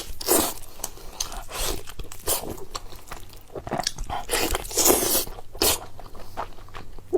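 A person chewing and biting food close to the microphone, with mouth sounds coming in irregular bursts every half second to second.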